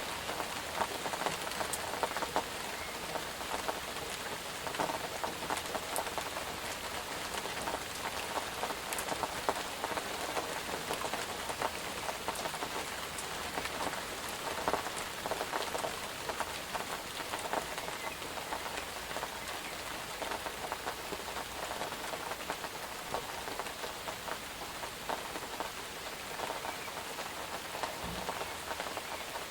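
Steady rain falling on a hard surface, with many individual drops ticking close by.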